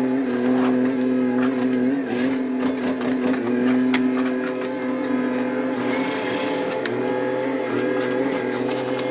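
A steady machine drone holding one pitch throughout, with scattered metallic clicks and clinks of hand tools, pliers working on a motorcycle's rear suspension linkage.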